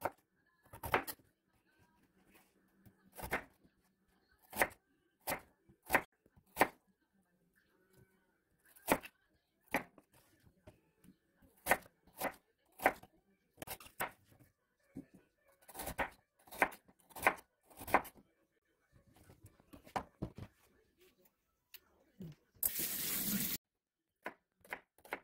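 A kitchen knife slices through Korean radish (mu) and then onion, each stroke clicking sharply against a plastic cutting board in an uneven series with short pauses. A brief hiss lasting about a second comes shortly before the end.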